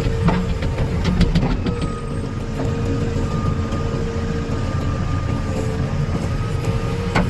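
Diesel engines of a JCB 3DX backhoe loader and tractors running steadily, with a steady whine over the low rumble. A few sharp knocks and clatters come in the first two seconds and again just before the end.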